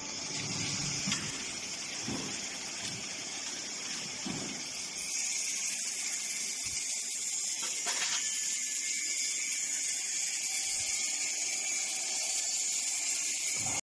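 Steady hiss from a running hydraulic tube-bending machine, getting louder about five seconds in, with a couple of short low sounds in the first few seconds.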